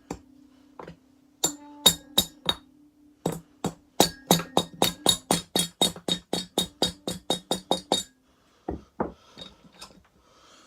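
Sharp metallic taps and clinks on the loosened cylinder (jug) of a 1985 Honda 250SX engine as it is worked free of the crankcase. A few scattered strikes, then about four seconds of steady, rapid tapping, roughly five a second, that stops suddenly.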